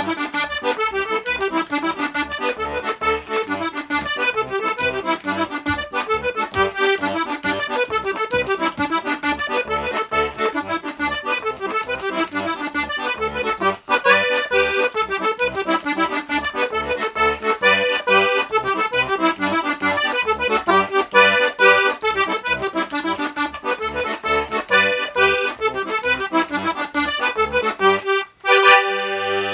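A small 1934 Hohner piano accordion, freshly restored, playing a lively jig-like tune: a quick right-hand melody over a regular oom-pah of bass notes and chords. Near the end it breaks off briefly, then holds a chord.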